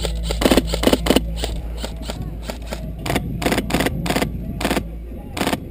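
Airsoft guns firing: a string of sharp snaps at irregular intervals, single shots and quick runs, over a steady low hum that stops near the end.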